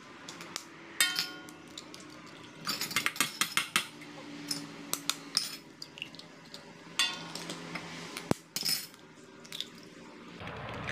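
Eggs being cracked one at a time on the rim of a stainless-steel mixing bowl: clusters of sharp taps and shell crackles, several of them followed by a brief metallic ring from the bowl.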